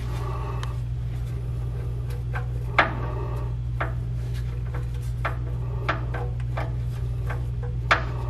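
Socket ratchet clicking in short, irregular runs as an oil drain bolt is tightened into the oil pan, with two sharper metal knocks about three seconds in and near the end. A steady low hum runs underneath.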